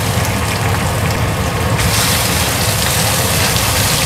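Whole fish frying in hot oil in a wok, sizzling steadily as a wooden spatula turns them, over a steady low hum. The sizzle grows louder and brighter about two seconds in.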